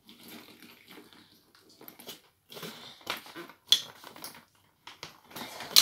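Handling noises of a hard-shell suitcase and a handbag being moved about: soft rustles and knocks, with two sharp clicks, one a little past the middle and one at the end.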